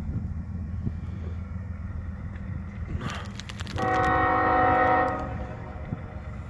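Approaching Union Pacific GE C45ACCTE (ES44AC) diesel locomotive rumbling low and steady. About four seconds in it sounds one multi-chime air-horn blast of about a second and a half, the loudest sound here.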